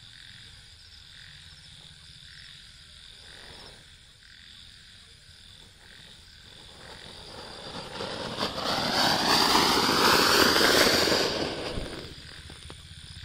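Anar (flower-pot fountain firework) spraying sparks with a hiss that builds from about halfway through, is loudest for a few seconds, then cuts off about a second before the end.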